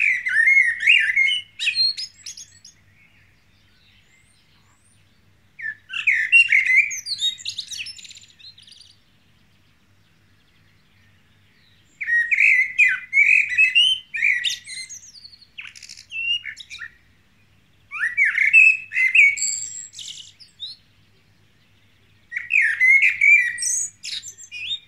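Male common blackbird singing: five flute-like warbling phrases with pauses of a few seconds between them, each running into higher, squeaky twittering notes.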